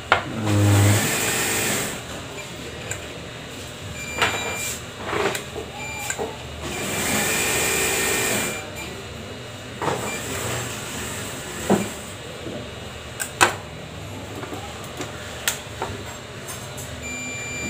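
Digital multimeter in continuity mode beeping with a high steady tone: short beeps and one longer beep of about a second and a half, as its probes are pressed onto capacitors on a GTX 1660 Ti graphics card's circuit board. The beep marks a short, which is traced to a shorted capacitor. Sharp clicks of the probe tips on the board and two stretches of hiss come between.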